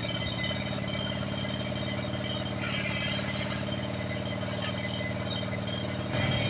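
Small riding lawn-tractor engine running steadily at idle while the tractor's crane arm lifts; it gets a little louder near the end.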